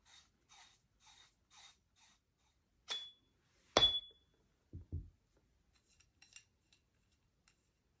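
Artemis P15 air rifle's shroud being unscrewed and handled: faint rasping of the threads about twice a second, then two sharp metallic clinks with a short ring, two dull knocks, and a few light ticks near the end.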